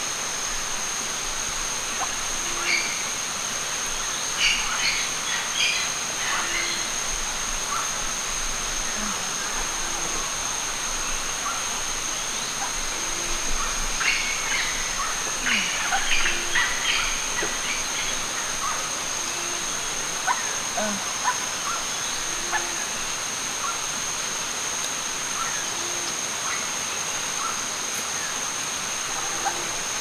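Rainforest ambience: a steady high-pitched insect drone, with bird chirps in two busy clusters, one about four to seven seconds in and another around fourteen to seventeen seconds. A short low call repeats about every two seconds.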